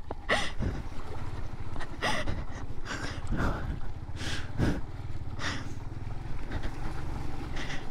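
Suzuki Van Van 125's single-cylinder four-stroke engine running steadily at low revs as the motorcycle rolls slowly along a muddy trail, with several brief splashes and scrapes from the tyres in the mud.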